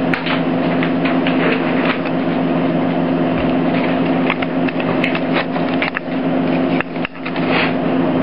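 Steady low electrical hum made of several even tones, with scattered clicks and light knocks as the camera is handled and reframed.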